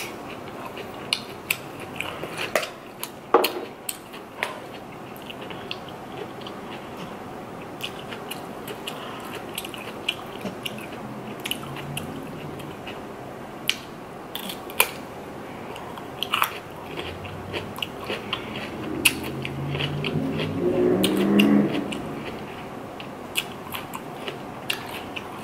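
Close-miked crunching and chewing of a raw cucumber, with many crisp crunches scattered throughout. About twenty seconds in comes a drawn-out hum, the loudest sound here.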